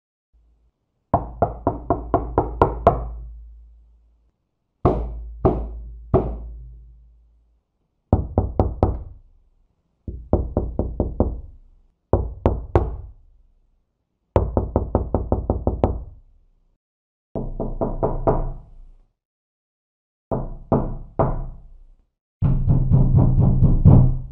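Knuckles knocking on a door in about nine separate bouts with pauses between them. Some bouts are quick runs of several raps, others two or three spaced knocks. The last is a dense, loud pounding.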